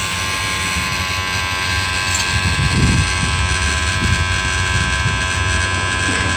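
Electric hydraulic pump of a truck's cab-tilt system running with a steady whine over a low hum as the tilted cab is lowered.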